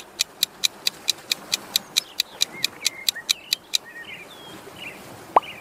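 Countdown-timer sound effect: rapid, even clock-like ticks, about four or five a second, that stop after about four seconds, with faint bird chirps behind them. A short, loud rising blip comes near the end.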